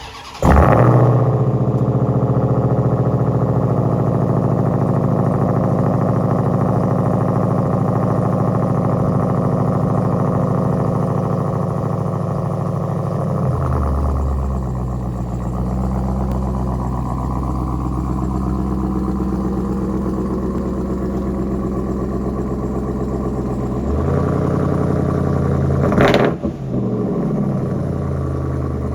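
Ram TRX's supercharged 6.2-litre Hemi V8 cold-starting through an AWE exhaust: it fires with a sudden flare, holds a fast cold idle, then drops to a lower idle about halfway through. Near the end it is revved once sharply and falls straight back to idle.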